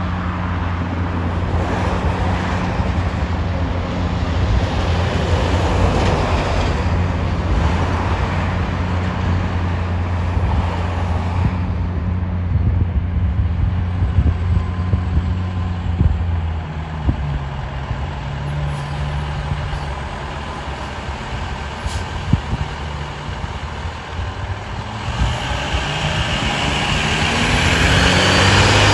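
2005 KME Excel fire engine's diesel engine running steadily at low revs, then pulling away, its note rising and growing louder as it accelerates toward the end.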